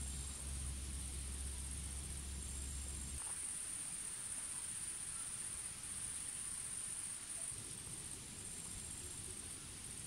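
Insects chirring steadily in a high, continuous trill, with a low hum that cuts off about three seconds in.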